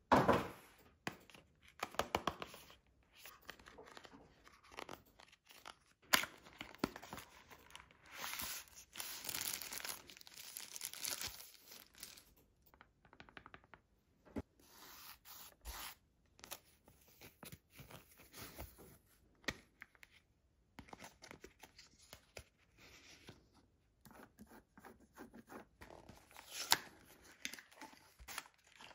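Accessory packaging being torn open and handled: paper and plastic tearing and crinkling, with cardboard scrapes and small clicks, in irregular bursts. A longer stretch of rustling comes about a third of the way through, then a short lull.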